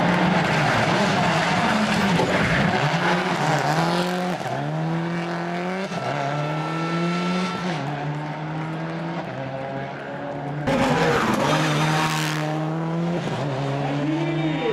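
Rally car engine revving hard, its pitch climbing and dropping back every second or two with each shift or lift, while the tyres skid on the tarmac. A louder rush of tyre noise comes about eleven seconds in.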